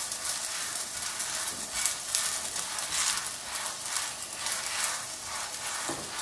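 Scallion pancake sizzling in oil in a nonstick frying pan, with a spatula rubbing across it in repeated strokes, a couple a second, as the pancake is turned in the pan.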